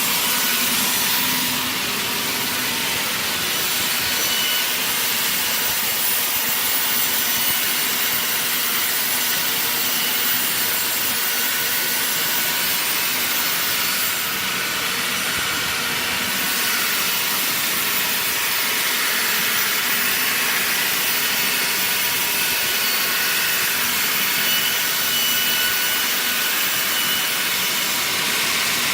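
Circular sawmill blade cutting through wood: a steady, high-pitched rushing whine that runs without a break.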